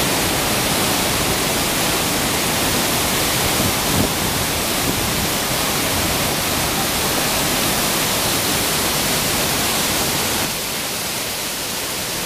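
Waterfall pouring over rock ledges into a pool: a loud, steady rush of water noise. It drops a little in level about ten seconds in.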